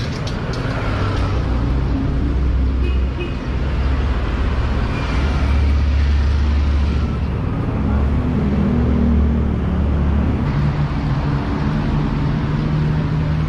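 Road traffic on a busy city street: engines of passing and nearby vehicles rumbling steadily, with tyre and road noise.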